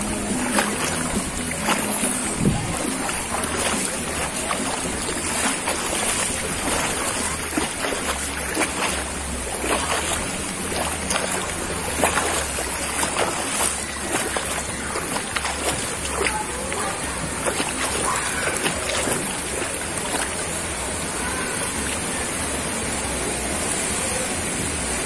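Water splashing and sloshing as a child swims and kicks, with repeated small splashes that are busiest in the first half, over a murmur of voices.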